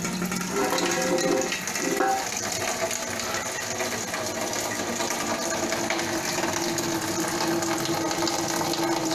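Tap water running through a faucet diverter valve and hose into a twin-cartridge household water filter: a steady hiss of flowing water with a steady hum underneath.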